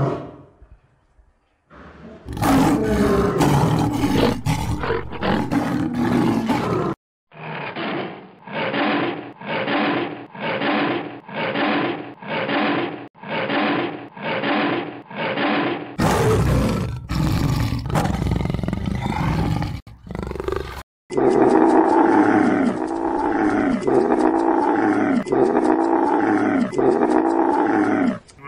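Big-cat roars from several separate recordings: a lion roaring, then a run of rhythmic grunting roars about one every two-thirds of a second, then more roaring. In the last third comes a series of repeated animal calls, each bending in pitch, about one a second.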